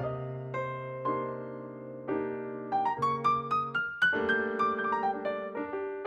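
Background music: a gentle piano or electric piano melody with chords, each note struck and left to ring, rising in a run of quick notes about halfway through.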